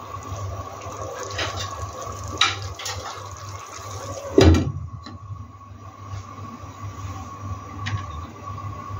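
Tomato and coconut fish curry bubbling in a pan on high heat, with a wooden spatula clicking against the pan as the sauce is spooned over the fish. About four and a half seconds in, a glass lid is set down on the pan with a clunk; a steady hum runs underneath.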